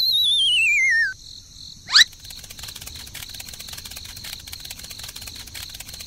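Cartoon sound effects. A warbling whistle slides down in pitch over the first second, a quick rising swoosh follows at about two seconds, and then cricket chirping runs on steadily.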